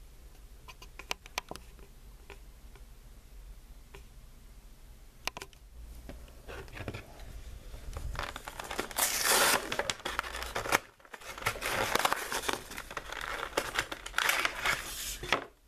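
Clear plastic blister pack of a diecast toy car being pried and pulled off its cardboard backing: a few light clicks, then from about halfway through a loud, dense crinkling and crackling of the plastic, with a short pause about 11 seconds in.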